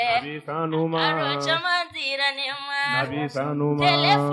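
Singing in long held notes that waver and glide in pitch, with short breaks between phrases.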